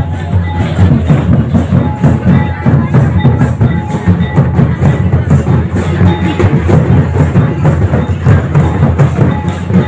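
Music for a Ho tribal festival dance: drums and percussion keeping a steady, loud dance beat, with crowd noise underneath.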